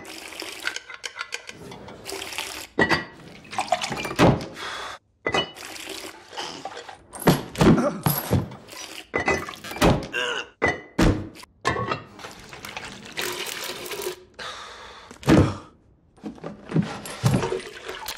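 A quick run of heavy knocks and clanks as chamber pots are stacked, set down and lifted from a rack. Mixed in are the slop and pour of liquid being emptied from them.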